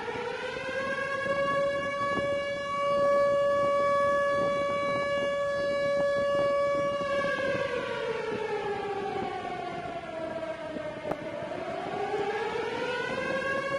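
Civil-defence siren wailing: one long steady tone that, about halfway through, slowly falls in pitch, then rises back to the same pitch near the end.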